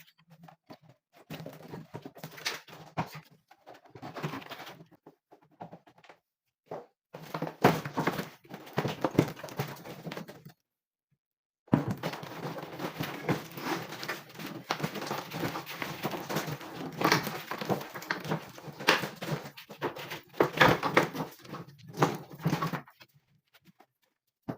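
Clattering, knocking and scraping of air conditioner parts and tools being handled, in short edited segments that cut off abruptly into silence.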